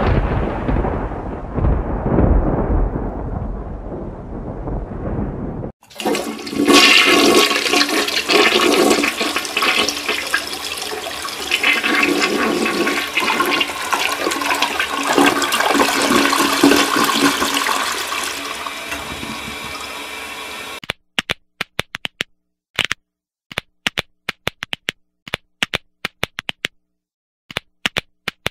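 A low rumble fading away, then rushing, gurgling water for about fifteen seconds, then a string of sharp separate clicks near the end.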